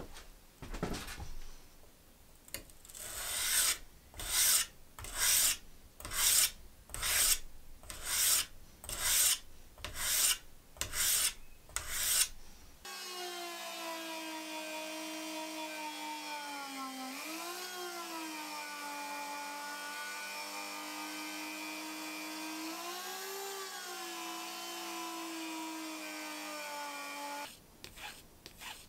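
A straight-razor blade rubbed back and forth on a diamond sharpening plate to even the edge, about one scraping stroke a second. Then a Dremel rotary tool runs steadily with a wool felt polishing bit on the blade, its whine dipping in pitch twice under load. Near the end come light stroking sounds of the blade on a fine abrasive pad.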